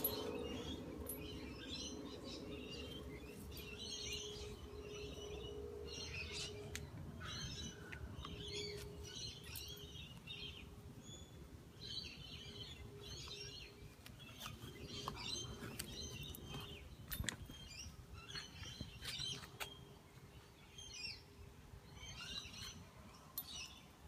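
Small birds chirping and singing in short repeated phrases, fairly faint, over a steady low hum, with a few sharp clicks.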